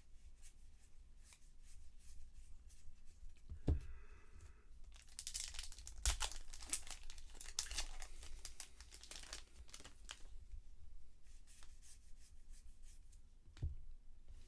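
A trading-card pack wrapper being torn open and crinkled, densest in the middle, with a few soft knocks on the table.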